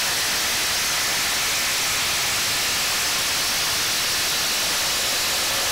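Two cordless impact drivers, a Ridgid Octane and a Hitachi/Metabo Triple Hammer, both hammering at once on mode three as they drive half-inch lag screws into a 4x4 without pilot holes. Their rapid impacts run together into one loud, steady din.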